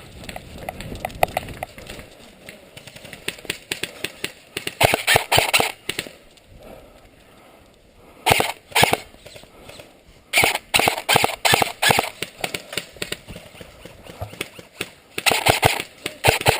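Airsoft guns firing in several bursts of rapid clicking shots, with quieter gaps between the bursts.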